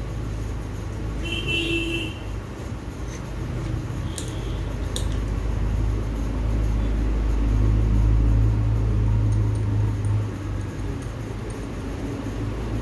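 Steady low rumble of a running engine, swelling for a few seconds past the halfway point, with two sharp clicks about four and five seconds in.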